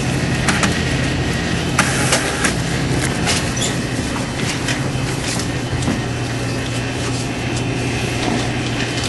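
A steady low machine hum with several steady tones, with scattered sharp clicks and taps, most of them in the first few seconds.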